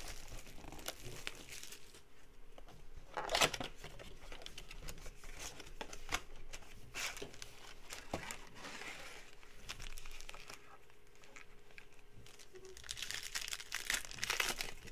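Plastic shrink-wrap crinkling and tearing as it is stripped off a Donruss basketball blaster box, then the cardboard box being opened. Near the end, a foil card pack is torn open with a burst of crinkling.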